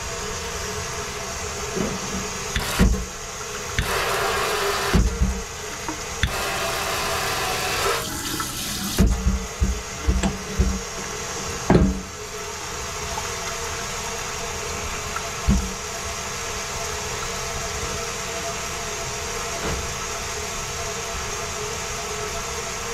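Water running from a kitchen faucet into a stainless steel sink, a steady hiss, with several thumps and louder splashing stretches in the first half.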